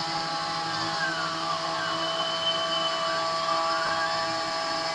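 CNC 3040 desktop router milling aluminum plate: the spindle and end mill give a steady multi-tone whine, while the stepper drives add a pitch that slides up and down as the axes trace a circle.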